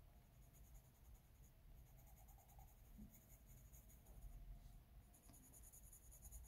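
Faint scratching of a soft coloured pencil shading on paper in short repeated strokes.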